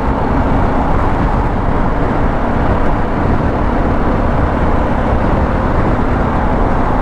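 Motorcycle cruising at steady highway speed, heard from the rider's seat: constant wind and road rush with a low, even engine hum underneath.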